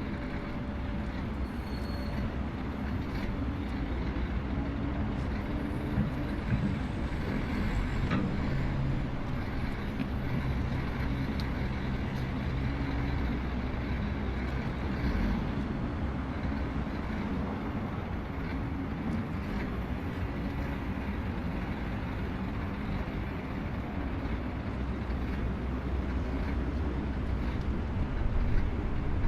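Diesel engines of heavy earthmoving machines, bulldozer and excavators, running steadily under work, with a couple of brief knocks.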